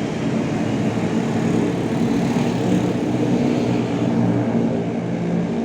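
A bus engine running steadily.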